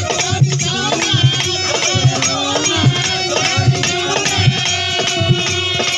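Instrumental break in a Bhojpuri folk song: a lead melody instrument plays a winding tune over a steady hand-drum beat with light percussion.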